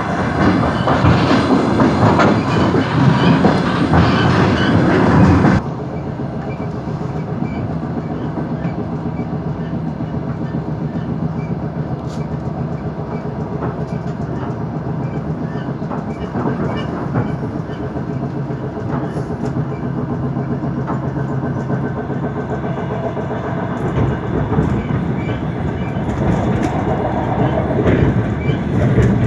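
Diesel multiple-unit train running at speed, heard from inside a carriage: a steady engine drone under the wheels' clicking over rail joints. About five seconds in, the noise drops abruptly to a quieter, duller ride sound.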